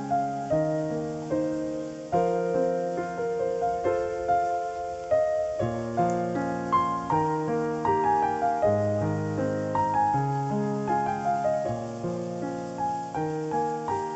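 Background piano music: a gentle, flowing melody of notes that strike and fade over sustained chords.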